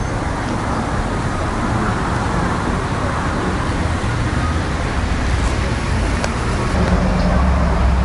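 Steady road traffic noise, with a low rumble that swells near the end.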